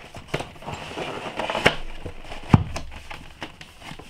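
A cardboard retail box being opened and handled: the paperboard flap scrapes and crackles, with scattered small clicks, a sharper click about a second and a half in, and one louder knock about two and a half seconds in.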